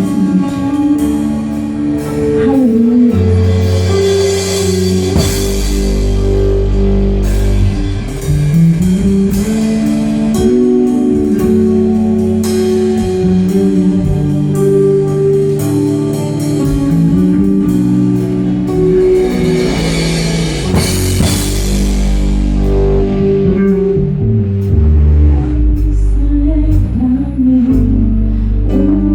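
Live gospel band playing, with electric guitar, bass and drum kit; the bass and drums come in about five seconds in, with cymbal crashes then and again about twenty seconds in.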